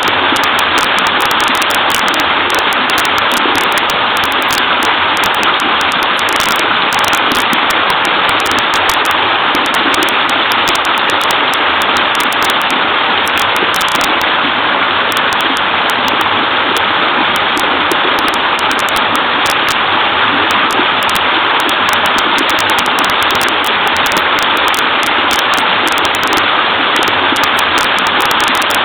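Small waterfall in a creek: water pouring and splashing in a steady, unbroken babble.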